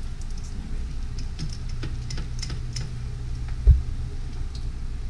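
Egg-battered chile rellenos frying in hot oil in a skillet, the oil crackling with scattered small pops over a steady low hum. A single dull thump about three and a half seconds in is the loudest sound.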